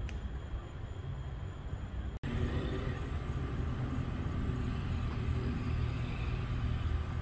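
Distant SpaceX Falcon 9 rocket heard as a low, steady rumble. The sound cuts out for an instant about two seconds in.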